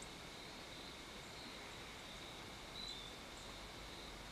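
Faint evening field ambience with insects trilling steadily at a high pitch, and a few tiny short chirps.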